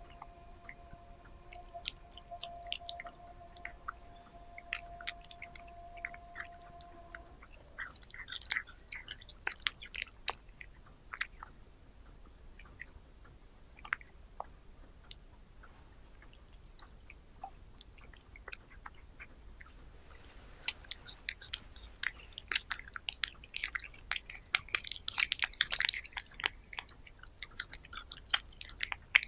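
A cat chewing and biting chunks of raw meat: wet, clicky chews coming in spells, one flurry about eight seconds in and a longer, louder run of chewing over the last third.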